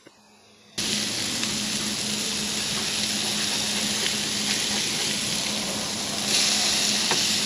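Hamburger patties sizzling as they fry, a steady crackling hiss that starts abruptly about a second in and grows a little louder near the end.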